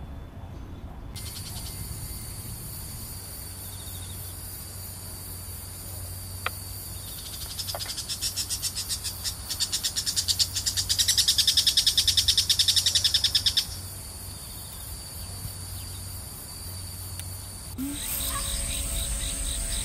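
A singing insect, grasshopper-type: a steady high-pitched buzz, with a fast, even trill that swells louder for several seconds and stops suddenly about two-thirds of the way through.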